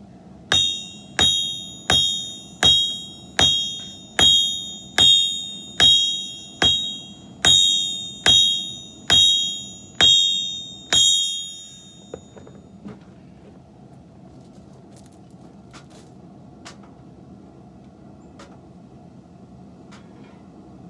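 About fourteen evenly paced hammer blows on an anvil in the first eleven seconds, a little more than one a second. Each blow rings out with a high metallic tone. After the blows stop there are only a few faint clicks.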